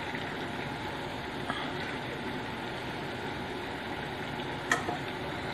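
Cubes of eggplant deep-frying in hot oil in a pan: a steady sizzle, with a couple of light ticks.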